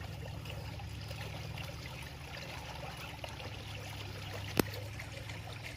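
Swimming-pool water trickling steadily over a low hum, with one sharp click or knock about three-quarters of the way through.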